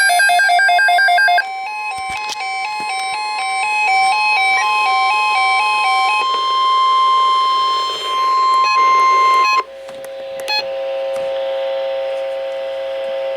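Electronic emergency-alert tones announcing a weather alert. A fast trill alternating between two pitches gives way to a run of stepping beeps over a steady high tone, which stops about nine and a half seconds in. A held chord of several lower tones follows.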